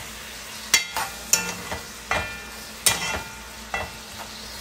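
Large metal spoon knocking and scraping against an aluminium pot while sliced onions and peppers are stirred, frying in oil with a steady sizzle underneath. The spoon strikes come about six times, unevenly spaced, each with a short metallic ring.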